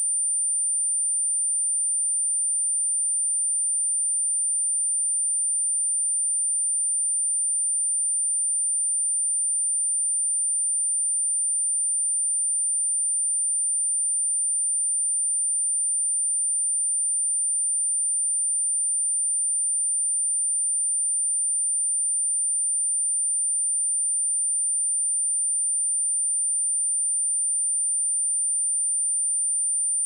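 A pure 9164 Hz sine-wave test tone, one steady high-pitched whistle at a constant level, used to test speakers or shake dust and water out of them.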